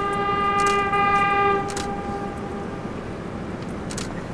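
Subway train horn sounding one long, steady blast of about three seconds over city traffic noise, with a few sharp clicks after it.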